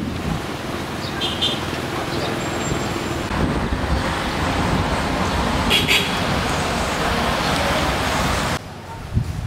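Street traffic noise with motorbike engines running and passing. Two short high-pitched sounds stand out, about a second in and near six seconds in.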